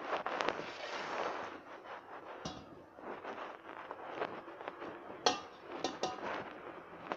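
Crumbly flour-and-tapioca dough being worked by hand and with a metal spoon in a stainless steel bowl: steady rustling and scraping, with a few sharp clinks of the spoon against the bowl, the loudest a little after five seconds in.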